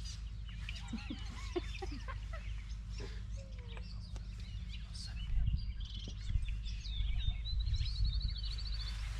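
Wild birds chirping and calling, with a fast, even trill near the end, over a steady low rumble that grows louder and more uneven in the second half.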